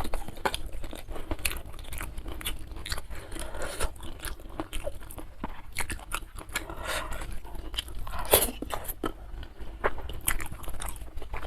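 Close-miked chewing and crunching of food, with many irregular sharp crunches. The loudest crunch comes about eight seconds in.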